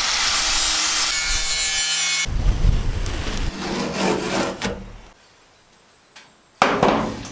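Jigsaw cutting the sheet metal of a van roof, stopping sharply about two seconds in, followed by a couple of seconds of scraping and rubbing on the metal and one short loud scrape near the end.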